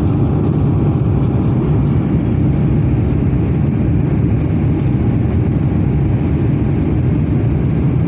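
Steady low rumble of an Airbus A350 climbing after takeoff: its Rolls-Royce Trent XWB jet engines and the rushing airflow, heard inside the cabin, with a faint steady whine above it.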